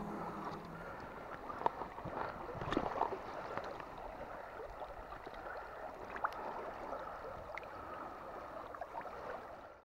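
Shallow stream running and gurgling over a stony bed, with small splashes and drips as a brown trout is held in the current and released. The sound cuts off suddenly near the end.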